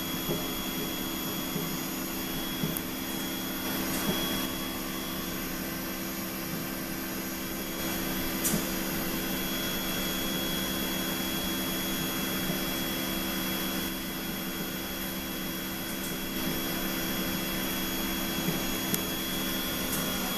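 Steady whir of a cone calorimeter's exhaust fan and methane burner during a 5 kW methane calibration burn, with a steady hum and a few faint clicks.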